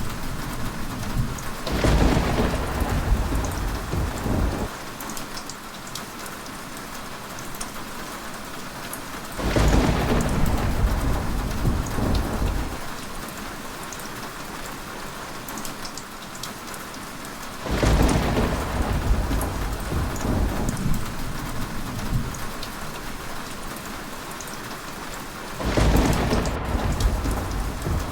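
Steady heavy rain, with thunder rumbling four times at roughly eight-second intervals, each roll lasting about three seconds.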